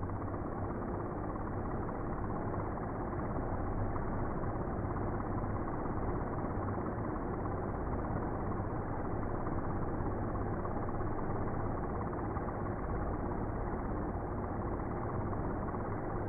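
DJI Mini 2 quadcopter's four motors and propellers spinning at idle on the ground: a steady whirring hum, deepened by slow-motion playback.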